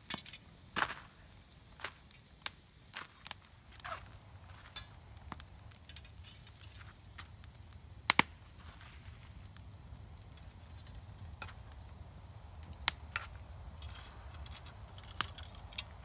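Hand-forged iron campfire cooking rods clinking and knocking against each other as they are handled and fitted together, in scattered sharp metallic clicks, with a loud double clack about eight seconds in.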